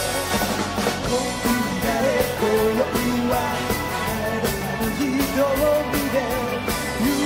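Live pop-rock band playing with a male lead vocal over electric guitars and drums.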